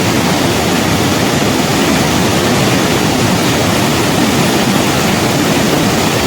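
Snowmelt river rushing over rocks: a loud, steady wash of water noise, fullest in the low-middle range.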